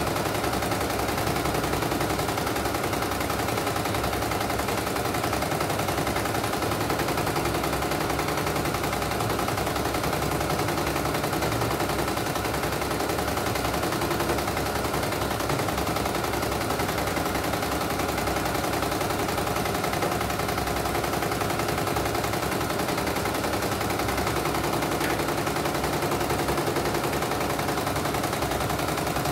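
CNY E900 portable computerised embroidery machine stitching steadily, a rapid, even run of needle strokes as the hoop carries the fabric. This is a test stitch-out after its mainboard was replaced.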